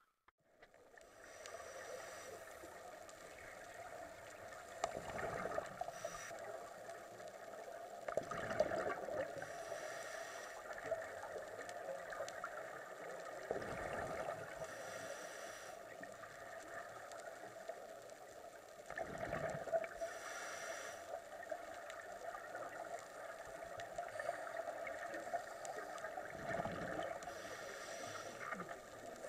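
Scuba diving heard underwater: a steady hiss with a diver's regulator breathing, exhaled bubbles gurgling out every four to six seconds.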